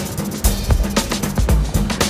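Background music with a steady, heavy drum beat, about two beats a second, over a deep bass line.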